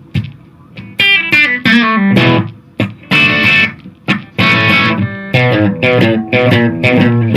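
Electric guitar through the Lekato Tank G Black's Bogner Shiva overdrive preamp model, on the bridge pickup and picked hard so the tone breaks up slightly. The playing is loud chord hits and quick single-note runs, in several short phrases with brief gaps.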